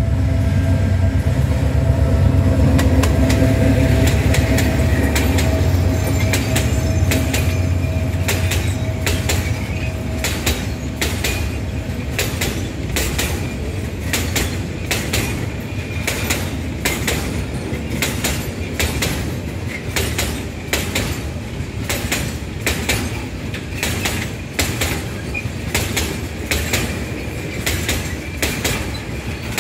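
Diesel freight locomotive's engine running as it passes close by, its drone fading over the first ten seconds or so, followed by a long train of loaded oil tank wagons rolling past with a steady, regular clickety-clack of wheels over the rail joints.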